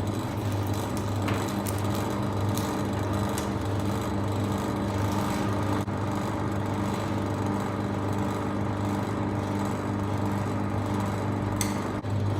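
A motor vehicle's engine running steadily, an even drone that holds one pitch.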